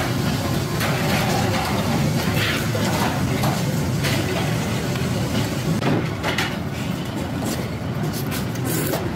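Steady city traffic noise, a continuous low rumble of passing vehicles, with faint voices under it.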